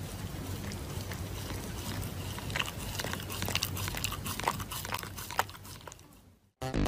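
An animal chewing crunchy food: irregular crunches and clicks over a steady hiss that fade out; electronic music starts just before the end.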